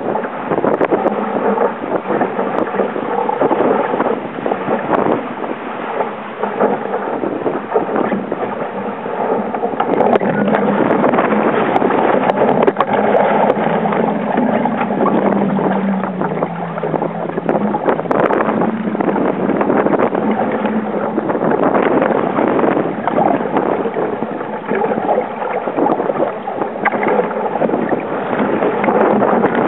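Wind buffeting the microphone and water rushing and splashing against the hull of a small wooden Sabre sailing dinghy in strong wind, with many sharp splashes and knocks, as the boat heels hard and goes over in a capsize.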